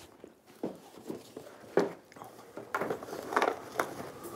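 Scattered light knocks and rustles of a picture frame being handled and moved about. They get busier about three seconds in.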